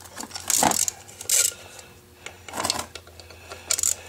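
Metal parts clinking and rattling in four short bursts as a chrome plate and its bolts are handled and fitted against a 283 Chevy small-block water pump, over a faint low steady hum.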